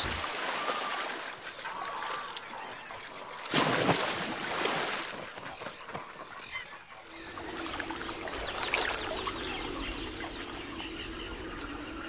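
Caiman splashing in river water: a loud wash of splashing about three and a half seconds in that lasts a second and a half, over water lapping and faint bird calls.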